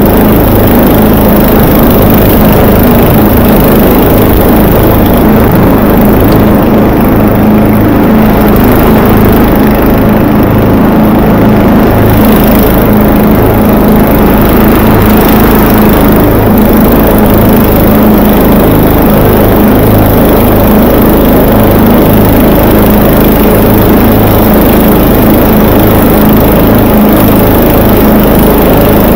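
Vintage Murray 11/36 riding lawn mower's engine running steadily while mowing, loud and close.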